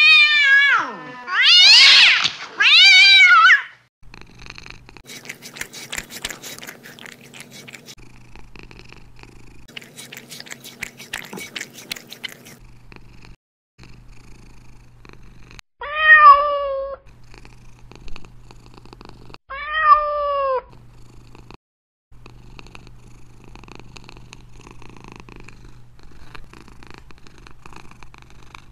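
Domestic cat meowing and purring: three loud meows with a wavering pitch at the start, then soft purring, broken a little past halfway by two short meows that fall in pitch, about four seconds apart.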